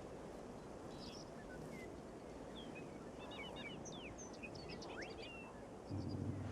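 Faint outdoor ambience with scattered small bird chirps and quick whistled glides. Near the end comes a brief, louder low rumble.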